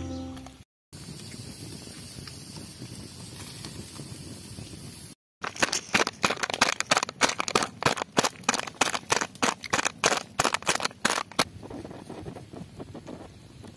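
Garlic cloves being pounded with a pestle in a plastic cup: a run of sharp knocks, about four a second, for roughly six seconds. Before it, a steady hiss of outdoor background noise.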